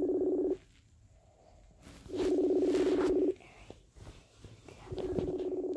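Outgoing call ringing on an iPad, heard through its speaker while the call goes unanswered. A steady tone lasts about a second and repeats every few seconds: one ring ends just after the start, another comes about two seconds in, and a third begins near the end.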